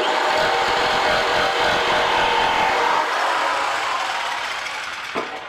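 Electric jigsaw sawing through a hardwood board: the motor and blade start abruptly and run steadily, then fade over the last two seconds and stop shortly before the end.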